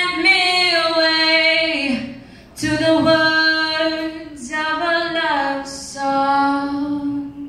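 A teenage girl singing solo a cappella, holding long sustained notes in three phrases with short breaths between them; the last note ends near the end.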